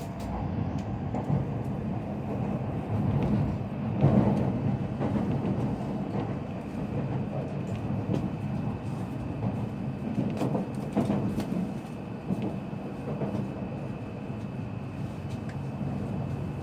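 Joetsu Shinkansen train heard from inside the passenger car as it runs: a steady low rumble with scattered clicks.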